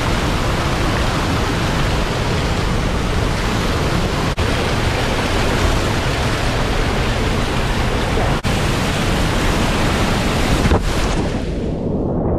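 Whitewater roaring through a narrow bedrock slot, close to the microphone, a loud steady rush with two very brief dropouts. Near the end the high end falls away and the rush turns dull and muffled as the kayak enters the water.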